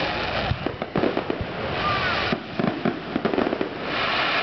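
Aerial firework shells bursting overhead: a rapid run of bangs over dense crackling.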